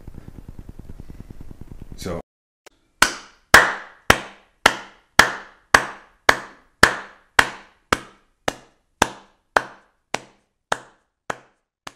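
A faint rustle, then from about three seconds in a run of about seventeen sharp knock-like hits, evenly spaced at about two a second. Each rings briefly, and they grow fainter toward the end.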